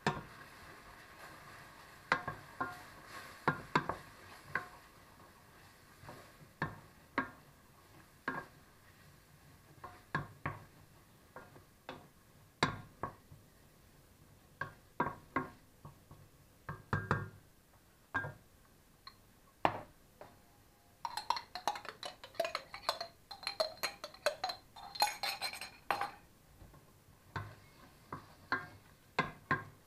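Wooden spoon stirring in a stainless steel pot, knocking against the sides and bottom in scattered, irregular clinks. About two-thirds of the way through there are a few seconds of quicker, denser clatter.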